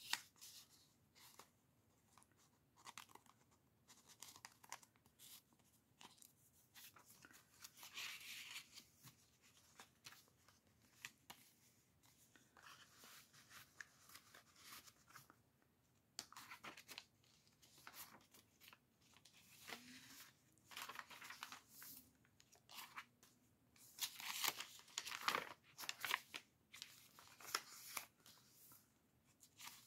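Faint rustling and crinkling of paper as the pages of a handmade junk journal are handled and turned and paper tags are slid in and out of pockets, with scattered small clicks. The rustling grows louder about eight seconds in and again near the end.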